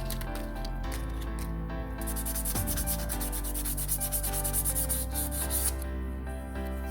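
Sandpaper rubbed quickly back and forth in rapid, even strokes, starting about two seconds in and stopping near the end, with background music underneath.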